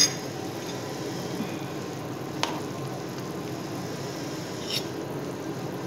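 Chicken in sauce sizzling steadily in a hot metal pan. A sharp metal clink comes right at the start and a lighter one about two and a half seconds in, from a spoon against the pan as pieces are scooped out.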